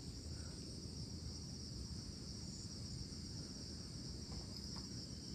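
A steady, high-pitched chorus of insects chirring in the riverside vegetation, over a low continuous rumble.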